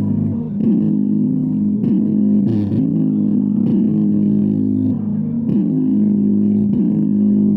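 Instrumental song passage with guitar and bass played through a small open Bluetooth speaker driven by a 2030 amplifier chip. The sound is bass-heavy, with held low notes sliding from pitch to pitch and little treble.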